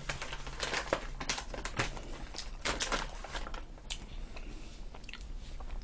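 Close-miked eating and handling noises: irregular soft clicks and crinkles from chewing pizza and handling a paper napkin, over a faint steady hum.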